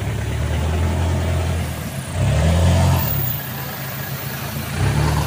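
Off-road Suzuki Jimny's engine running under load, revving up in a loud surge about two seconds in and again briefly near the end.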